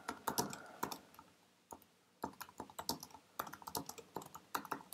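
Typing on a computer keyboard: quick, light key clicks in runs, with a short lull after about a second.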